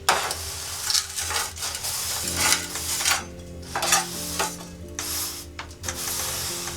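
Repeated sizzling hiss, in short bursts about every second, typical of water thrown onto the hot stones of a wood-burning sauna stove. Soft background music plays underneath.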